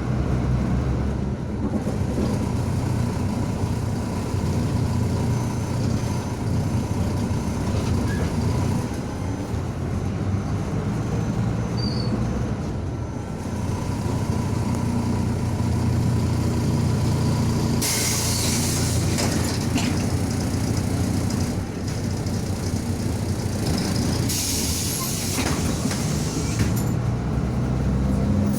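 MAZ 105 city bus on the move, heard from inside: a steady engine and road drone. Two bursts of compressed-air hiss from the bus's pneumatics come a little over halfway through and again near the end, each lasting about two seconds.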